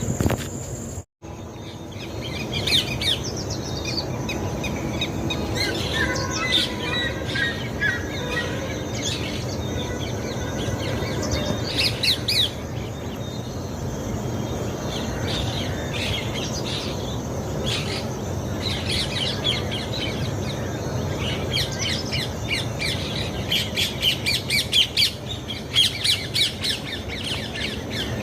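Rose-ringed (Indian ringneck) parakeets calling: many short, shrill squawks and chirps in clusters, coming thickest near the end, over a steady low background rumble.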